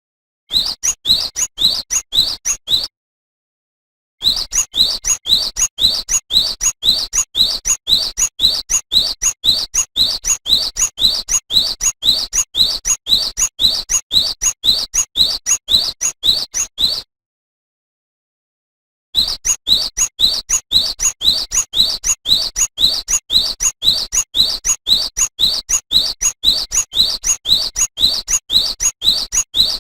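Cinereous tit (gelatik batu) singing a long run of short rising notes, repeated about two a second. The run breaks off twice for a second or two.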